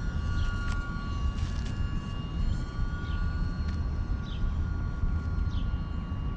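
Electric motor and propeller of an E-flite UMX Pitts micro RC biplane in flight, a steady high whine, over a constant wind rumble on the microphone.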